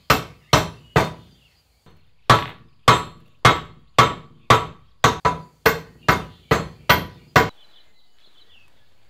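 Hammer blows on a new drive flange being driven onto the pinion shaft of a Land Rover Series 1 rear differential, about fifteen sharp metallic strikes at roughly two a second with a short pause after the first three, stopping about 7.5 seconds in. The flange won't go on: it wouldn't fit and was getting ripped apart as it was fitted.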